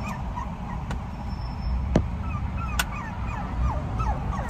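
A young puppy whining in a string of short high-pitched squeaks, over the low rumble of an idling car. Two sharp clicks come about two and three seconds in.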